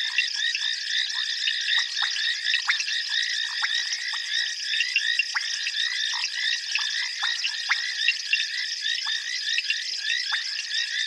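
Dense chorus of frogs calling, many short high calls overlapping without a break, with scattered lower, falling notes among them.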